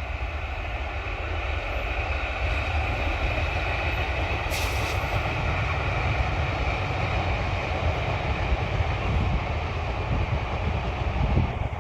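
Train passing through a railway crossing: a steady rumble of the cars going by, with a brief high hiss about four and a half seconds in.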